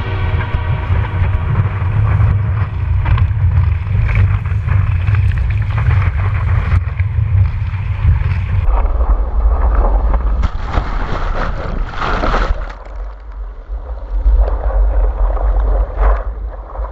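Wind buffeting a surfboard-mounted action camera's microphone, with water rushing and splashing past the board as it rides a wave. The wind rumble eases about halfway through, and there is a burst of louder splashing a couple of seconds later.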